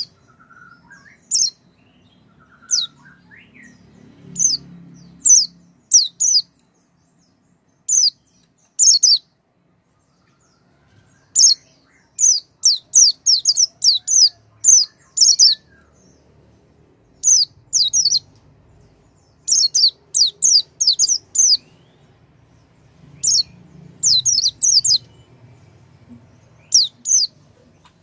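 White-eye (pleci) calling: short, high, thin notes that each slide downward, given singly or in quick runs of up to about eight, with pauses between. This is a lure recording played to a silent pleci to set it singing.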